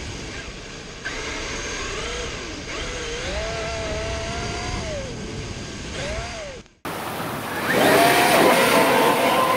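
Traxxas X-MAXX RC truck's brushless electric motor whining, its pitch rising and falling several times with the throttle over a noisy hiss. After a sudden cut about seven seconds in, a louder, noisier stretch of the truck running.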